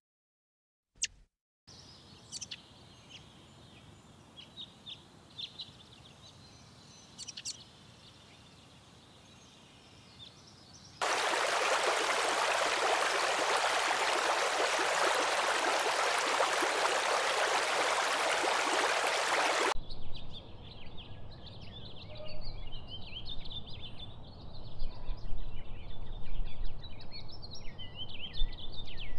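Outdoor nature sound in three cuts: faint background with scattered bird chirps, then a loud steady rushing noise for about nine seconds that stops abruptly, then dense high chirping over a low rumble.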